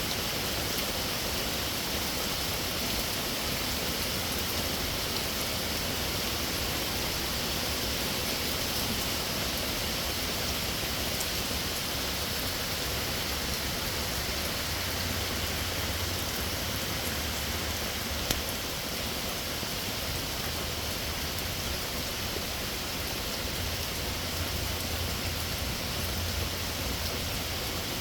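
Heavy rain falling steadily, mixed with water pouring from a rain-gutter downspout. One short knock sounds about eighteen seconds in.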